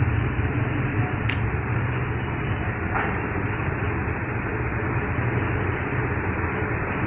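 Steady low rumble and hiss of background machinery or traffic, with two brief sharp clicks about one and three seconds in from presses on a feature phone's keypad.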